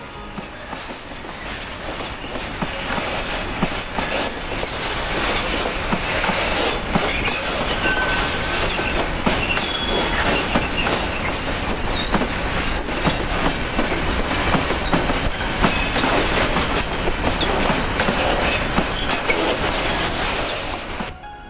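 Freight train of covered wagons rolling past close by: loud rumble of steel wheels with a clatter of clicks over the rail joints and a few brief high wheel squeals. It swells up over the first couple of seconds and cuts off near the end.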